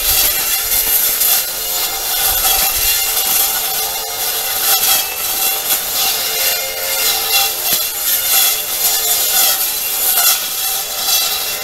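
Makita cordless brush cutter with a Tsumura eight-tooth steel blade running steadily and cutting through grass and weed stems.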